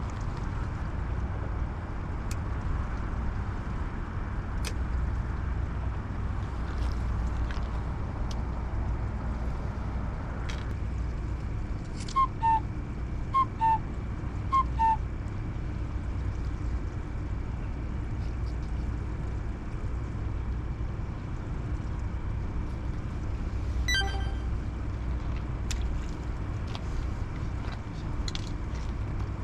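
Steady low outdoor rumble of wind and water. Partway through come three pairs of short two-note electronic beeps, about a second apart, and later a single short chirp.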